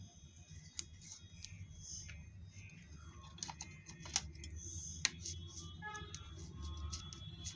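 Scattered light clicks and taps of a needle and a metal tool against the casing of a swollen phone battery as it is punctured and pressed, the loudest about five seconds in, over a low steady hum.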